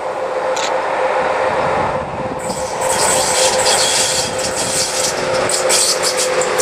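DB class 181 electric locomotive running light past at speed. A steady whine sits over growing wheel-and-rail noise, and a dense high crackle of clicks sets in about two and a half seconds in as the locomotive draws level.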